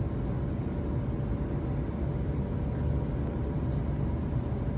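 Steady low rumble of an East Midlands Railway passenger train running along the track, heard from inside the carriage, with a faint steady hum over it.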